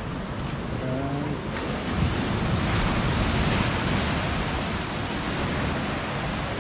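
Ocean surf breaking on the beach below, a steady wash that swells about halfway through, with wind rumbling on the microphone.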